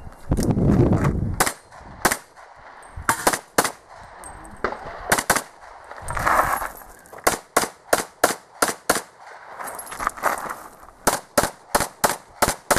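Rapid handgun fire during an IPSC stage: about two dozen pistol shots, many in quick pairs, in short strings separated by brief pauses. A low rumbling noise fills the first second and a half.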